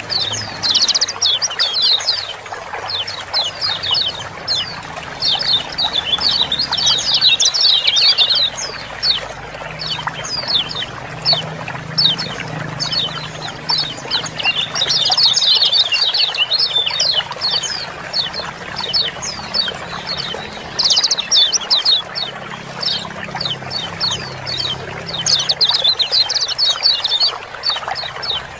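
Several kecial kuning white-eyes giving rapid, overlapping 'ciak-ciak' chip calls in busy bursts, over a steady background of running water.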